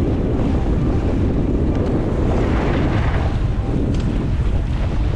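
Strong wind buffeting the camera microphone over the rush of water along a J/70 sailboat's hull as it sails. The noise stays steady and heavy in the low end throughout.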